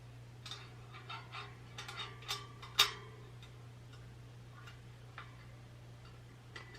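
Light metallic clicks and ticks of motorcycle wheel spokes and nipples being wiggled and tightened, a quick run of them in the first three seconds, the loudest near the third second, then two more single clicks. Some clicks ring briefly, and a steady low hum runs underneath.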